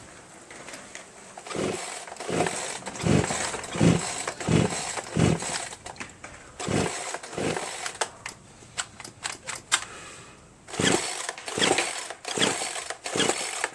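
Poulan Pro PR4218 two-stroke chainsaw being pull-started over and over. The recoil starter is yanked about every three quarters of a second, each pull turning the engine over without it ever firing. After a pause of a few seconds come more pulls. It cranks but won't start because it has low compression, about 35 psi, from a badly scored piston, rings and cylinder wall.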